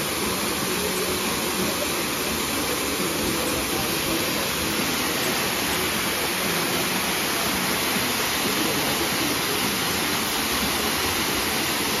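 Waterfall pouring down a rock face into a plunge pool, a steady, even rushing of falling water.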